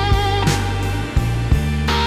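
Instrumental slow blues: an electric guitar line over bass and drums, with no singing.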